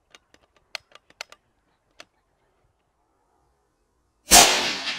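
A few faint clicks, then a single loud rifle shot about four seconds in, its report dying away over a second or so.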